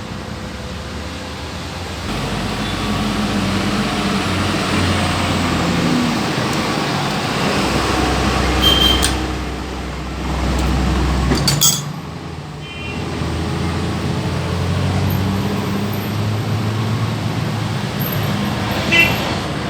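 A motor vehicle engine running with an uneven low rumble, with a few sharp metallic clinks, about three times.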